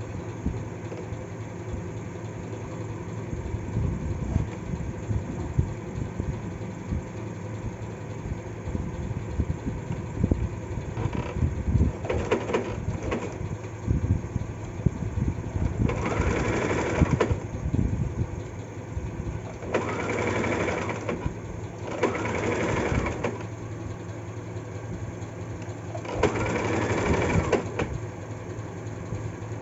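Compact electric home sewing machine stitching fabric in several short runs of a second or two, mostly in the second half, over a steady low hum.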